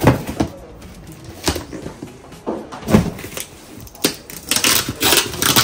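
Cardboard carton being handled and closed: a few knocks as the flaps and box are pushed about, then a stretch of scratchy cardboard scraping and rustling near the end.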